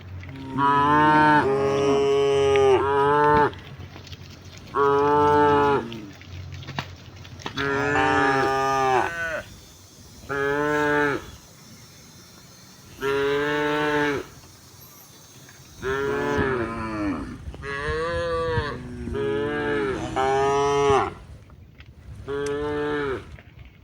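Cattle mooing repeatedly: about nine drawn-out calls of one to two seconds each, with short pauses between them.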